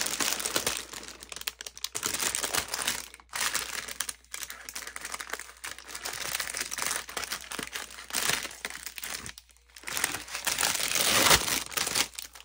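Clear plastic packaging bag around a silicone resin mold crinkling and rustling as it is handled and pulled open by hand, in irregular bursts with a couple of brief pauses, loudest near the end.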